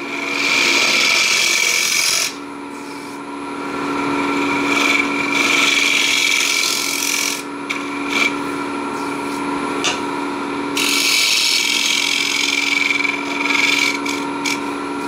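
Neureiter Twister XL wood lathe running with a steady whine while a refiner scrapes the foot of a spinning wooden bowl. The cutting hiss comes and goes in several passes with short breaks.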